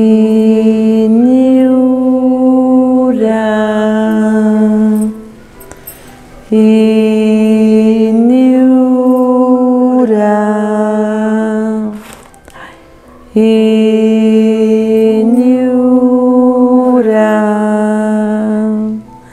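A woman's voice chanting a long held mantra syllable three times in the ritual. Each chant lasts about five seconds: it holds a note, steps up a little, then drops back as the vowel opens.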